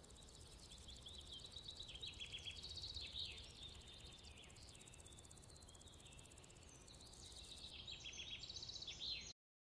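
Faint high chirping calls of small animals, repeated in short runs over a low steady background noise. The sound cuts off suddenly near the end.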